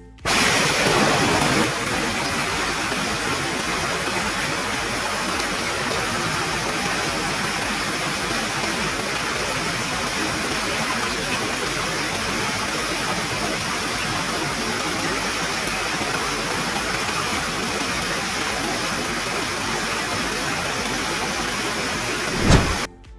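Steady rush of a waterfall in monsoon flow, an even, unbroken noise of falling water.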